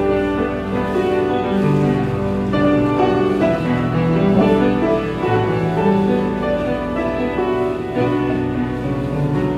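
Live piano music: a slow instrumental piece with long held notes.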